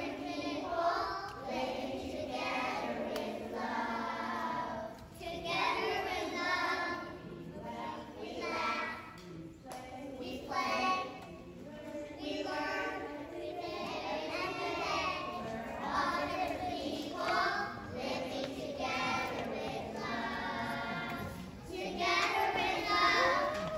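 A group of young children singing together as a choir, in sung phrases with short breaks between them.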